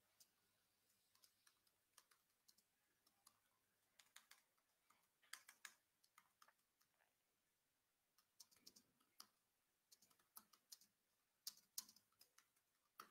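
Faint, irregular keystrokes on a computer keyboard as text is typed, a few scattered clicks at first and closer together in the second half.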